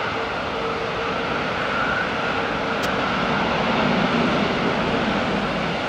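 Boeing 747's four jet engines running as the airliner rolls out after touchdown on a wet runway: steady engine noise with a held low hum and a higher whine, swelling slightly about two-thirds of the way through.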